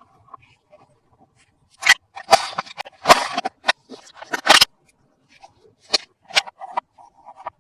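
Plastic toys and packaging being handled: a run of sharp clicks and short crinkly scrapes, loudest and busiest between about two and five seconds in, then a few separate clicks.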